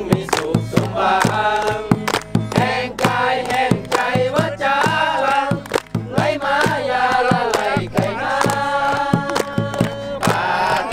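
A group of voices singing a song together in chorus, accompanied by steady rhythmic hand-clapping.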